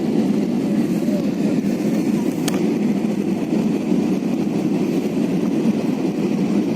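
Steady rumble of a passenger jet's cabin noise, engines and airflow, with a single sharp click about two and a half seconds in.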